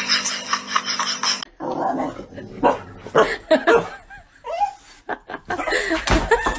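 A dog barking and yelping in short, separate calls, some of them bending in pitch, after a rapid, even ticking that stops abruptly about a second and a half in.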